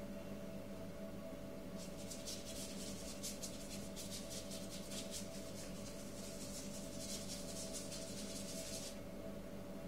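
Rapid scratchy strokes of a painting tool rubbing back and forth on paper, several a second, starting about two seconds in and stopping about a second before the end, over a steady low hum.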